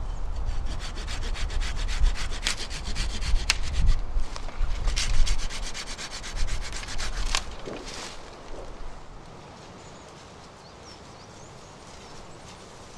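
Small hand saw cutting through a young elm sapling at its base in quick, even back-and-forth strokes, with a few sharp snaps among them; the sawing stops about seven seconds in.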